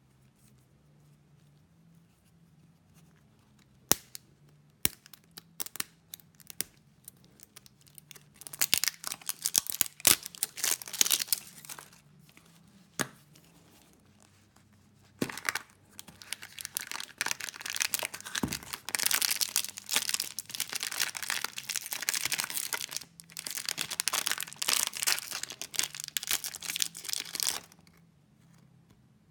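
Foil and plastic wrappers being torn and crinkled by hand off a surprise egg and its toy: a few sharp snaps early, a short stretch of crinkling, then a long run of steady crinkling that stops shortly before the end.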